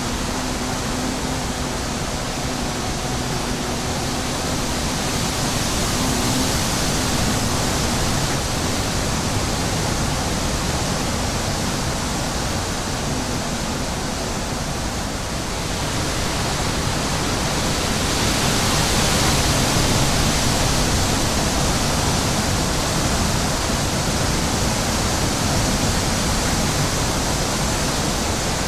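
Wind buffeting the microphone, a steady rushing noise that swells in gusts about a quarter of the way in and again past the middle. Through the first several seconds a bee's low, steady buzz sits under the wind.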